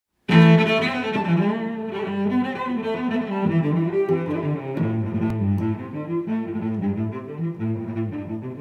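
Background music led by low bowed strings, playing a shifting line of sustained notes. It starts abruptly just after the beginning.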